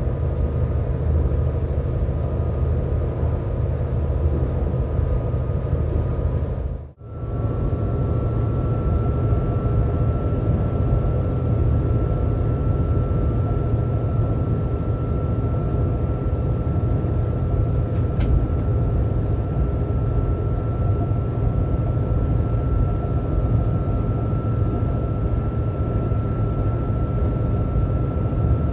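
Train running at speed heard from the locomotive cab: a steady engine and wheel-on-rail rumble with a faint high whine over it. The sound cuts out for a moment about seven seconds in, then carries on unchanged.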